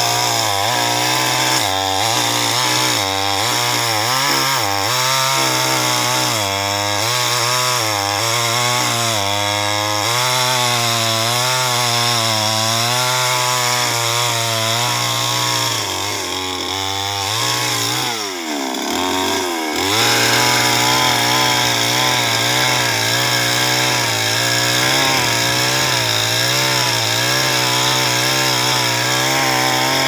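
Chainsaw running at high revs while cutting through a tree trunk, its pitch wavering as the chain bites into the wood. About eighteen seconds in the revs drop sharply and climb back, then it runs on steadily.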